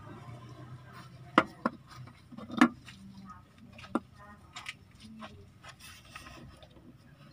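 Small plastic sensor being handled over engine-bay plastic: rubbing with a few sharp clicks and knocks, the loudest about one and a half and two and a half seconds in, another near four seconds, then lighter ticks.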